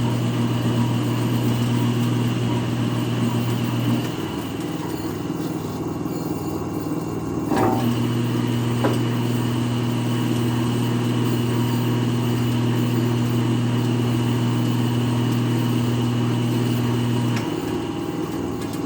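A 3 hp electric motor belt-driving a planer, running with a steady electrical hum. The hum cuts out about four seconds in while the running noise carries on, comes back with a sharp click about eight seconds in, and cuts out again near the end.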